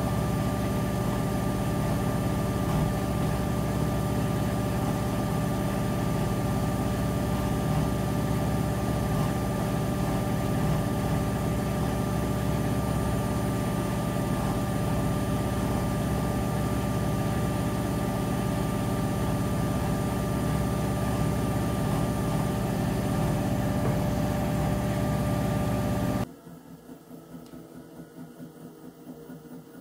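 Whirlpool FreshCare+ front-loading washing machine running with a steady low hum and a fixed whine. About 26 seconds in it cuts off suddenly, leaving a much quieter sound.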